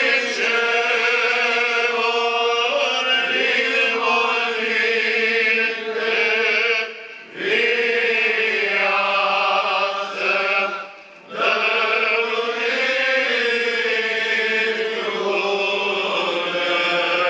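Orthodox liturgical chant: sung voices hold long, slowly moving notes, breaking off briefly about seven and eleven seconds in.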